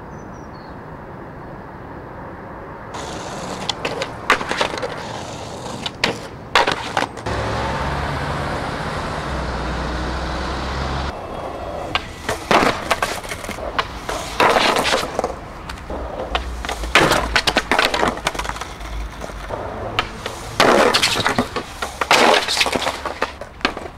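Skateboard wheels rolling on asphalt and concrete, with sharp clacks and scrapes of the board and trucks hitting the ground and ledges. A steadier rolling stretch comes about a third of the way in, and bursts of clatter and scraping fill the second half.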